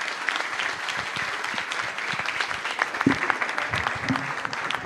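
Audience applauding, a steady mass of handclaps, with a voice or two briefly heard over the clapping in the second half.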